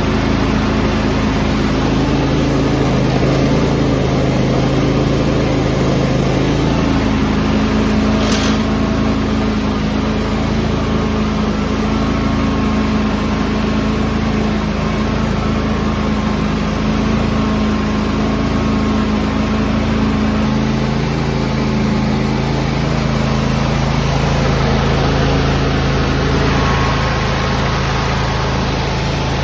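John Deere X330 lawn tractor engine running steadily, its pitch changing about seven seconds in and again about twenty seconds in. There is a brief click about eight seconds in.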